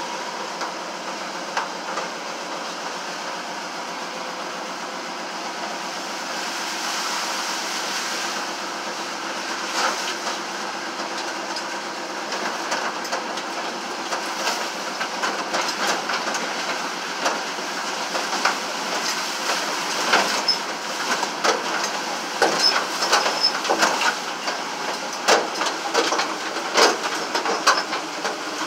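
A vehicle driving slowly over a rough, muddy track, heard from inside its stripped-out cab: steady engine and road noise with loose parts rattling and knocking. The knocks come thicker and louder in the second half.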